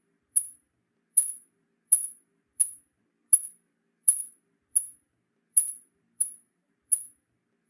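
Bat squeaking: a series of short, very high-pitched chirps, about eleven of them, evenly repeated roughly every three quarters of a second.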